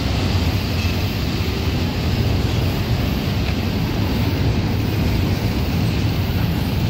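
Double-stack intermodal freight train rolling past: a steady rumble of steel wheels on rail, with no pauses.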